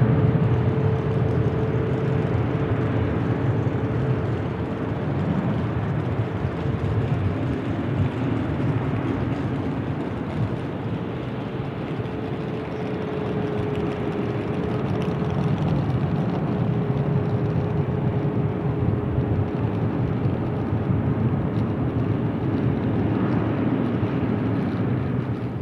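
Airbus A330-200F freighter's twin jet engines running, a steady loud rush of noise with a thin whine held nearly level and sagging slightly in pitch.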